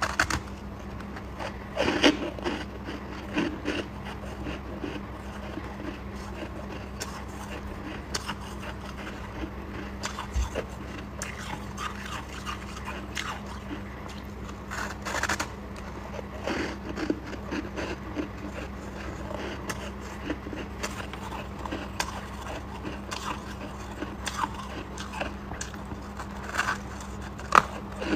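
Close-up biting and chewing of chunks of packed frost and shaved ice: scattered crisp crunches at an irregular pace, with the sharpest about 2 s, 15 s and 27 s in. A steady low hum runs underneath.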